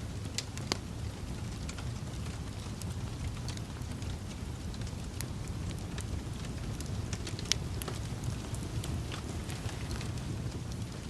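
Wood fire burning in a fireplace: a steady low rumble of flames with scattered sharp crackles and pops of burning logs, two of them louder, about a second in and near eight seconds in.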